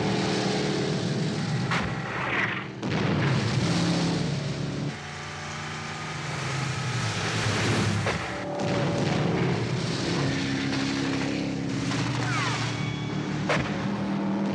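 Speedboat engines running at speed in a film action soundtrack, broken by a few sharp bangs and booms.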